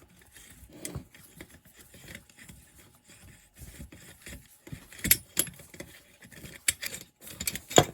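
Small metal chainsaw parts and hand tools clinking, rattling and scraping as the saw is taken apart by hand, with irregular clicks and a few sharper knocks about five seconds in and near the end.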